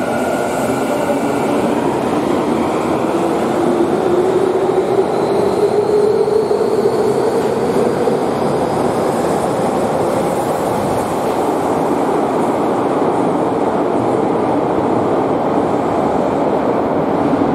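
Electric subway train pulling out of an underground station. Its motors whine upward in pitch as it picks up speed, over a steady rumble of wheels and running gear as it heads into the tunnel.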